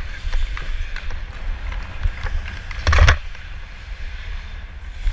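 Ice hockey player's on-ice sounds heard from his own body-worn camera: skate blades scraping the ice and the stick tapping the puck in quick clicks, with one loud crack about three seconds in. Under it runs a steady rumble of wind on the microphone from skating.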